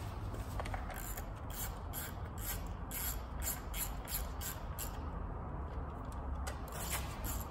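Hand ratchet clicking in quick strokes, about four clicks a second, as bolts on a Toyota 2JZ-GTE's lower timing cover are run in. The clicking stops for a second or so past the middle, then starts again.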